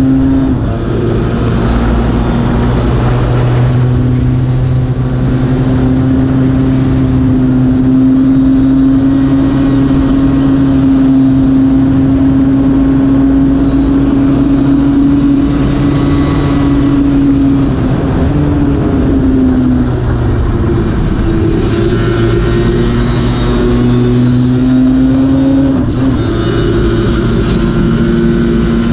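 Lambretta racing scooter's two-stroke engine held at high revs at full race pace, heard from onboard with wind rush. The note dips briefly about a second in, again around eighteen to twenty seconds in and near twenty-six seconds, each time climbing back up.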